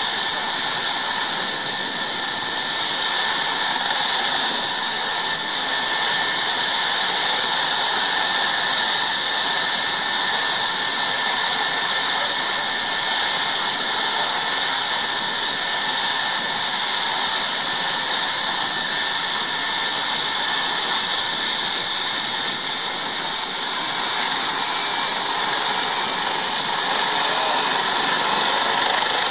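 Eurocopter EC135 medical helicopter's twin turbine engines running at ground idle, a steady high-pitched whine.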